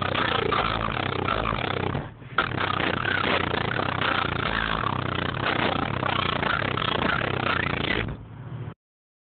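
Car audio system with subwoofers playing bass-heavy music very loud, heavily distorted on the phone's microphone. The deep bass notes shift every second or so. The sound drops out briefly about two seconds in, weakens near the end, then cuts off.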